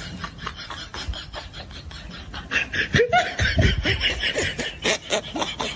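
Repeated bursts of laughter, getting louder about halfway through, with voices mixed in.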